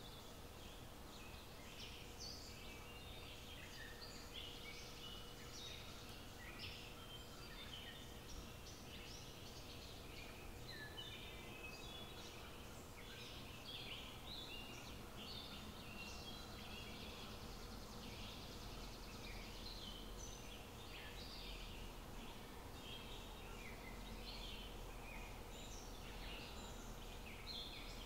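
Faint chorus of small birds chirping, many short overlapping calls at different pitches, over a thin steady hum.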